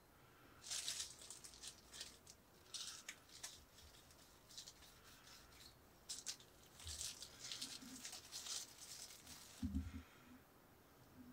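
Faint rustling and crinkling of a disposable plastic glove, with soft scraping as purple powder is shaken from a small ceramic ramekin and rubbed onto soft rice-cake dough. A couple of dull thuds come a little before the end.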